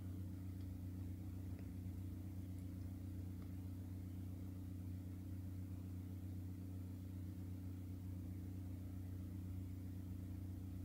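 Steady low hum of room tone, with nothing else standing out.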